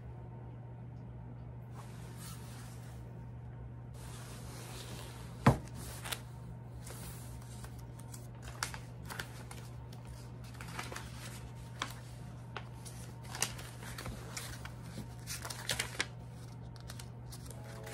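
Small handling sounds of desk work: scattered light taps, clicks and rustles, with one sharp click about five and a half seconds in, over a steady low hum.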